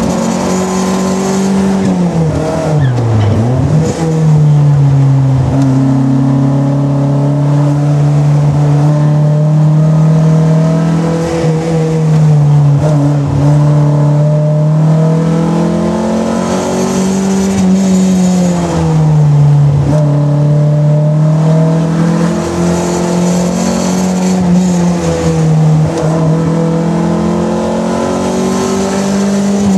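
Simca 1000 Rallye's rear-mounted four-cylinder engine, heard from inside the car at rally pace. Its pitch rises and falls with throttle and gear changes, with a sharp drop about three seconds in before it climbs again.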